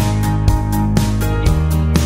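Background music with a steady beat of about four strokes a second over held low notes, which shift to a new chord about three quarters of the way through.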